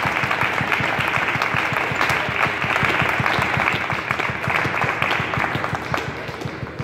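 Audience applauding with dense clapping that thins out and fades near the end.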